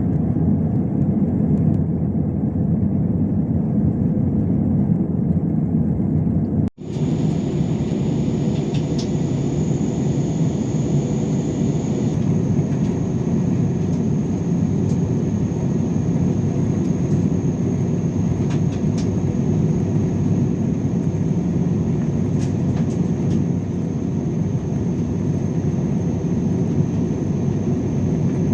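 Steady cabin noise of an Airbus A320-216 with CFM56-5B engines: a constant rush of air and engine drone. It drops out abruptly for an instant about seven seconds in, and afterwards a faint steady high whine sits above it.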